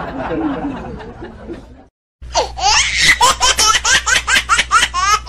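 Laughter sound effect: one laugh fades out, then after a brief cut a new burst of rapid, high-pitched laughter starts about two seconds in.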